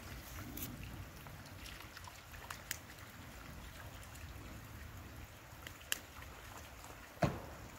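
Faint trickle of water from a low-flowing waterfall, with a steady low rumble underneath. A few sharp clicks break in, the loudest a knock near the end.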